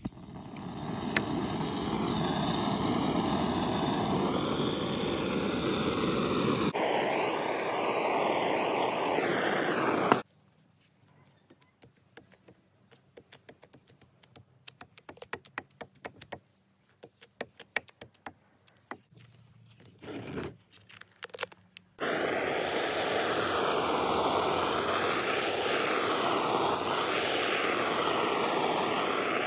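Handheld gas torch on a gas cartridge hissing steadily as it heats bitumen roofing membrane, starting with a click. It stops after about ten seconds, leaving soft clicks and scrapes as the membrane is pressed and handled, and the torch starts up again about 22 seconds in.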